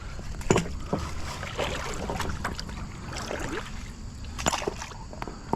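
River water splashing and sloshing, with scattered knocks and clunks, strongest about half a second in and again near the end.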